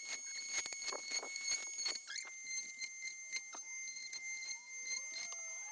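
Cordless oscillating multi-tool with a saw blade running with a steady high-pitched whine, and irregular short rasps and clicks as the blade cuts through the small wooden tabs holding CNC-routed cutting boards in their sheet.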